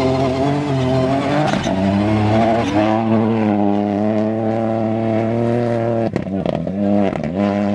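Ford Fiesta rally car's engine running hard as it passes through a gravel bend and pulls away. The engine note breaks off briefly twice near the end.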